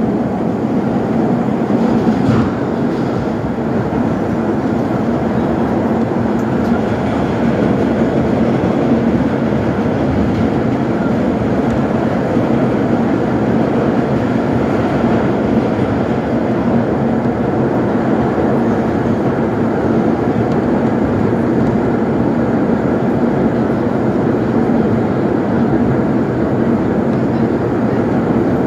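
Vintage R1/R9 subway car running at speed through a tunnel, heard from inside the car: a loud, steady rumble of wheels on rail with a faint steady hum, and a single click about two seconds in.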